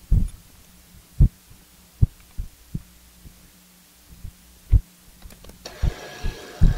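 Dull, irregular low thumps of metal tooling and the workpiece being handled at a milling-machine vise, over a faint steady hum. About six seconds in, a brief scratchy hiss, like chips being brushed off the work.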